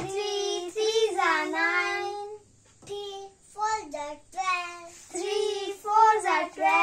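Two young boys chanting the three times table in a sing-song rhythm, each line called out and then repeated.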